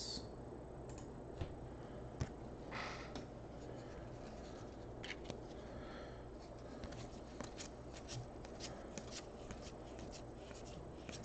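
Faint soft swishes and small clicks of glossy football trading cards being slid one behind another in the hand, over a low steady room hum.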